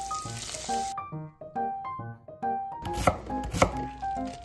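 Light background music with a repeating melody of short notes. Breaded cutlets sizzle in hot deep-frying oil over the first second, and two sharp knocks come about three seconds in.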